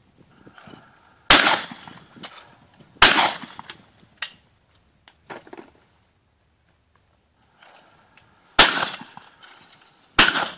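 Shotguns firing at driven clays: two shots about a second and a half apart, then after a lull of about five seconds two more, each shot trailing off with a short echo.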